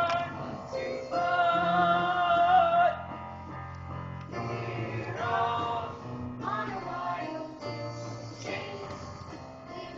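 Singing from a stage musical, male and female voices over instrumental accompaniment, with a loud long held note from about a second in, then shorter sung phrases.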